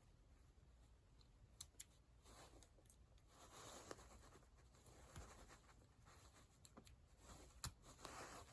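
Mostly near silence, with a few faint clicks and light scraping from small metal door knob lock parts being worked loose by hand.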